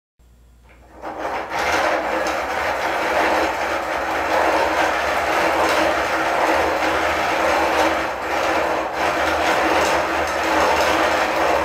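Hand-cranked, 3D-printed plastic gear train and cams of a mechanical laser projector whirring with a steady rasp, starting about a second in.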